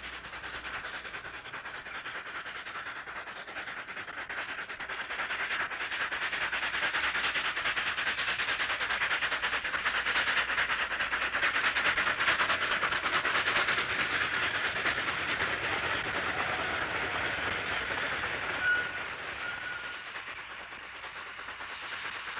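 Rio Grande narrow-gauge steam locomotive working hard with a freight train, its rapid exhaust beats and the clatter of the train growing louder to a peak about halfway through, then fading. A brief high note sounds about two-thirds through.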